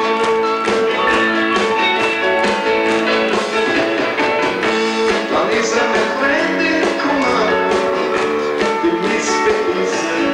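Live rock band playing a song, with acoustic guitar and a steady drum beat.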